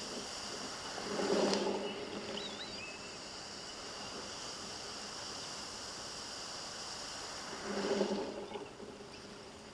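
Waves washing in among wet beach stones, picked up by a camera lying on the stones: two swells of rushing water, one about a second in and one near eight seconds, over a steady hiss.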